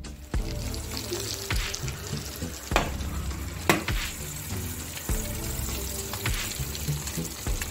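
Freshly roasted chicken pieces sizzling in their hot juices on a baking tray just taken out of the oven, with a couple of sharp metal clinks from the tray, the loudest near the middle.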